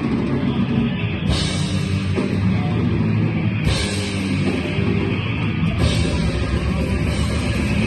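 Live heavy metal band playing: distorted guitars and bass over a fast drum kit. Cymbal crashes come in about a second in, again around the middle and again near the end.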